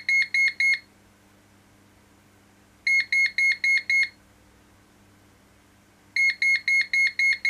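Daystate Air Wolf MCT air rifle's electronic beeper giving three bursts of quick, high beeps, about four a second, each burst about three seconds apart. These are the program-mode signal for stage six, the magazine counter setting, which the gun marks with six beeps.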